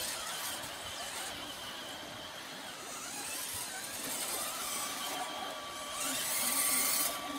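Small electric motors and gearboxes of radio-controlled scale crawler trucks whining as they crawl over a dirt trail course; a steady whine sets in about five seconds in, and a burst of hiss comes near the end.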